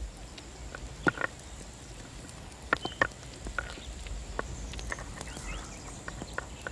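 Scattered sharp knocks and clicks, about a dozen at irregular intervals, with a few short high chirps over a faint steady high whine.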